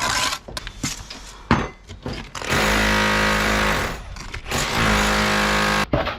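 A handheld power tool running in two bursts of about a second and a half each, with a short stop between them and scattered knocks before it starts.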